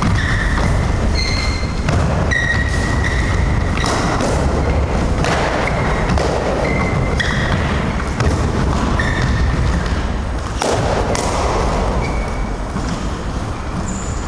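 Sneakers squeaking in short high chirps on a wooden squash-court floor as two people shift and circle while sparring, with a few dull thuds of strikes.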